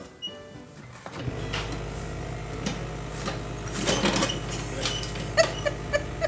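Paper towel rustling and the roll rattling on its holder as a cat paws and pulls sheets off it, over a steady low hum that sets in about a second in. A few short, evenly spaced ticks near the end.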